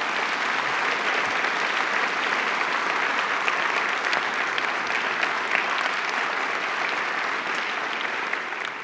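An audience applauding, a steady dense clapping that eases slightly near the end.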